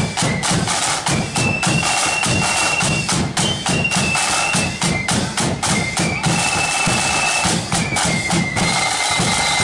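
Marching flute band playing: high, shrill flutes carry a tune of held notes over rapid snare-drum strokes and bass-drum beats.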